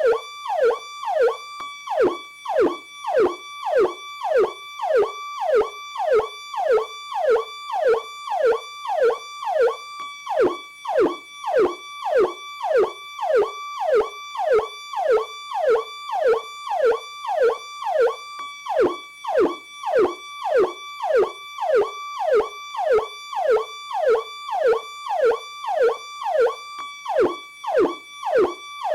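Electronic police siren sounding its Powercall tone. It repeats a fast cycle about twice a second, each time jumping high and then sliding down in pitch, with no break.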